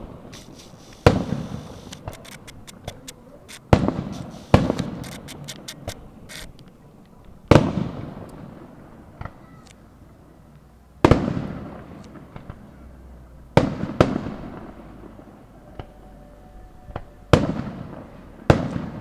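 Fireworks going off: about eight loud bangs a few seconds apart, each trailing off in a long echoing rumble, with a run of small crackling pops between roughly the second and sixth seconds.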